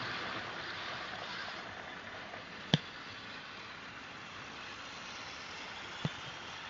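Hornby model train running past on the layout track: a steady rushing whirr of motor and wheels on rail that eases off slightly. Two sharp clicks cut through it, the louder one about three seconds in and a fainter one near the end.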